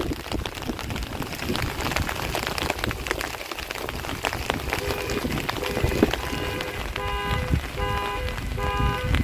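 Steady rain pattering, with gusts of wind rumbling on the microphone. From about halfway through, a repeated electronic beep sounds roughly once a second.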